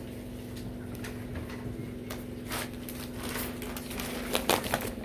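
Cloth and plastic packaging rustling and crinkling as the clothes are handled, in a run of short crackles from about two seconds in, over a steady low hum.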